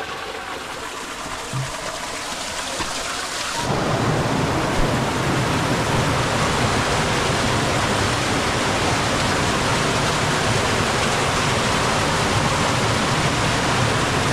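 Steady rush of falling water, which jumps louder about four seconds in and cuts off abruptly at the end.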